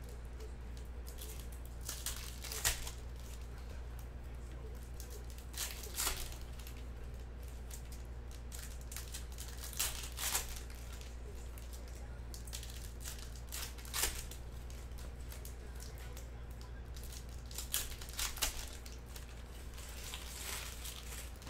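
Packaging of sports-card boxes and packs being handled: several short crinkling, tearing sounds a few seconds apart over a steady low hum.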